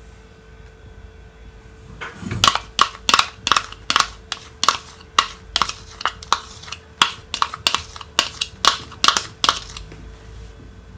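A wooden spoon taps and scrapes against a plastic measuring cup, knocking thick ketchup out of it. There are quick sharp knocks, about two to three a second, starting about two seconds in and stopping shortly before the end.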